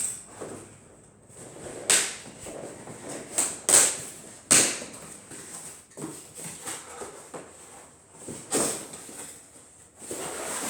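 A cardboard shipping box and its packaging being opened and handled by hand: a series of sharp rips and knocks, the loudest about two, four and eight and a half seconds in, with rustling in between.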